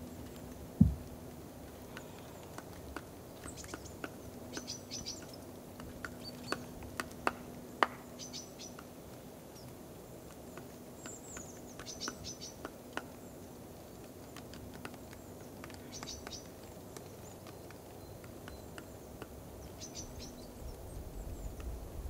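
Birds chirping in short high clusters every few seconds, with scattered light pecking taps at a feeder and one louder knock about a second in; a faint steady hum lies underneath.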